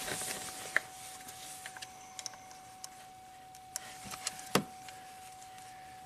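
Small plastic clicks and knocks of a wiring connector being worked loose from an engine's cylinder head temperature sensor, the loudest knock about four and a half seconds in. A faint steady high tone runs underneath.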